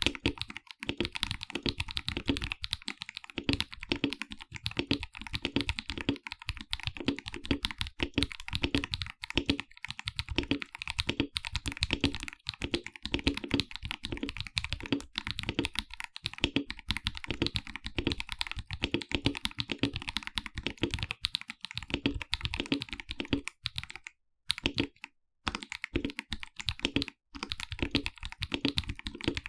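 Mechanical keyboard, a KBD67 Lite R2 fitted with Akko CS Ocean Blue tactile switches, typed on in a fast, continuous stream of keystrokes, with a few short pauses near the end.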